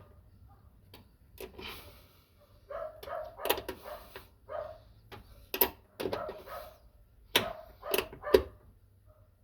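Irregular clicks and clinks of a hand tool working the nuts onto a car door check's bolts, tightened only lightly so the threads are not stripped.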